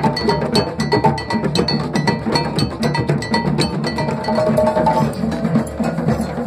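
Drum circle playing together: djembes struck by hand and stick-beaten drums in a dense, steady rhythm. A high, ringing, bell-like stroke repeats through the pattern.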